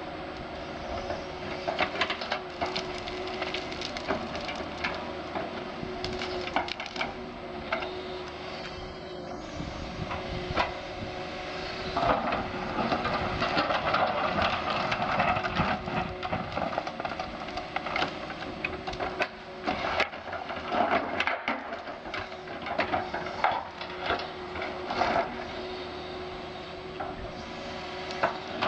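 Doosan DX180 LC tracked excavator running with a steady tone while its bucket digs into forest ground, with frequent sharp cracks and snaps of roots and wood breaking. The working noise grows denser for a stretch near the middle.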